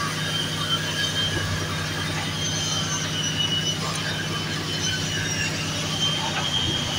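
Diesel engine of a Caterpillar 302.5 mini excavator running steadily, with a thin high squeal coming and going over it.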